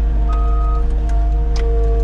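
Skid steer's diesel engine running, with its reversing alarm sounding one beep early on and a couple of light knocks, under background music.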